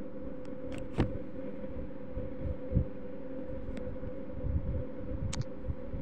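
Steady low mechanical hum with a constant tone, broken by a few short knocks and clicks: one about a second in, one near three seconds and one past five seconds.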